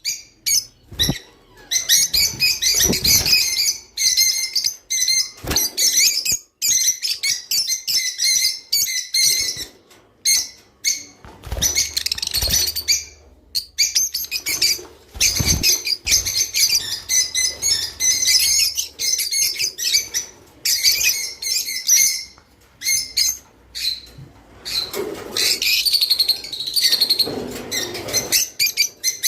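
Caged pet birds chirping and twittering in rapid, dense bursts with short pauses, with a few low thumps in between.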